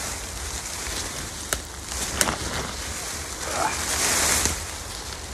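Camouflage net rustling and swishing as it is shaken out and spread, with two sharp clicks about one and a half and two seconds in, and a louder swish near four seconds. A low steady rumble of wind on the microphone runs underneath.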